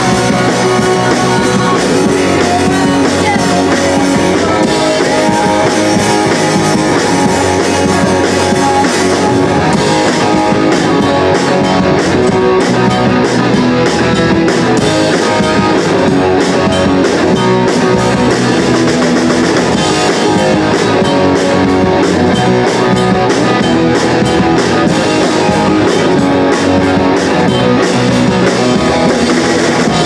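Live rock band playing loud and steady: distorted electric guitars over a drum kit.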